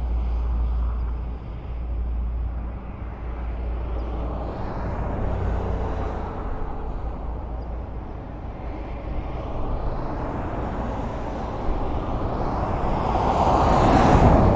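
Highway traffic: a steady rumble of cars going by, swelling and easing, with one vehicle passing close and loud near the end.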